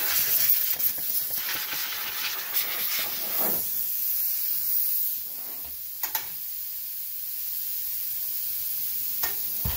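Compressed air hissing from a small air blow gun in uneven blasts, blowing leaked hydraulic oil off a Hydro-Gear ZT-2800 transmission. The hiss is strongest for the first few seconds, eases briefly, then runs steadier. A sharp click comes about six seconds in.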